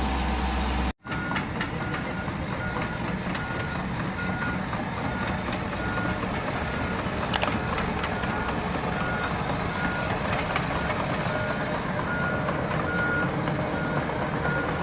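Komatsu PC78US excavator's travel alarm beeping evenly, about one short high beep every two-thirds of a second, over the steady running of its diesel engine.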